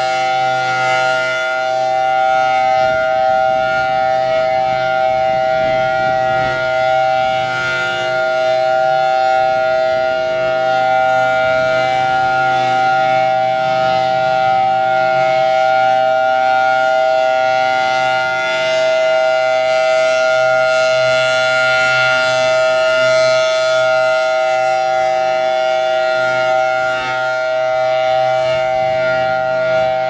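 Federal Signal Thunderbolt 1003 rotating outdoor warning siren sounding at full speed, holding a steady pitch as its horn turns.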